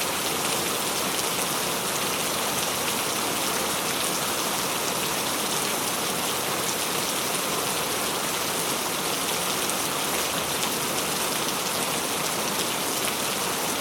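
Steady rain falling, a dense even hiss of many drops spattering on a surface, with no pauses.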